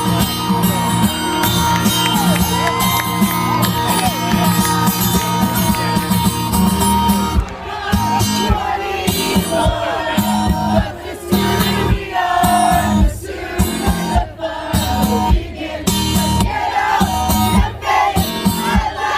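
Live concert music heard from within the audience: a guitar-led rock song with singing and a large crowd singing along and shouting. About seven seconds in, the dense sustained sound gives way to choppy, rhythmic chords broken by short gaps.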